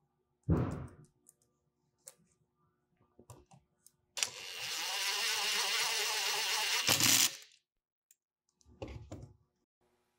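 A thump, then a cordless electric screwdriver runs steadily for about three seconds, driving a grub screw into the spring balancer's casing, followed by a couple of knocks.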